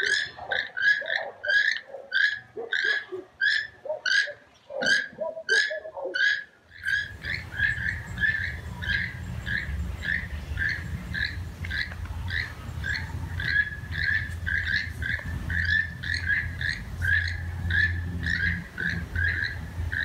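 Toucans calling: a steady run of short croaking calls, about two a second. From about seven seconds in, a low rumble sits under the calls.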